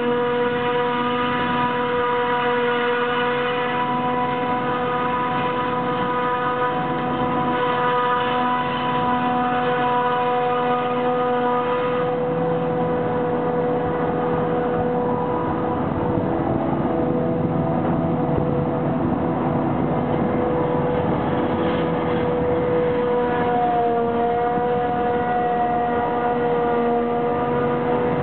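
Claas Jaguar 880 forage harvester chopping miscanthus grass under load, with a steady high-pitched whine over the drone of engines. The upper part of the whine fades and a lower rumble grows about halfway through as the machines come closer.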